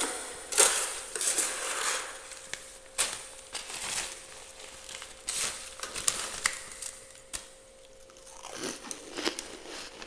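Freezer frost being scraped and crunched in irregular noisy strokes, with a short lull about three-quarters of the way through.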